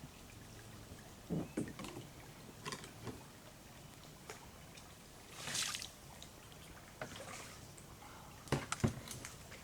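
Kayak paddling: water splashing and dripping off the paddle, with a brief splash a little past halfway and a few light knocks, several close together near the end.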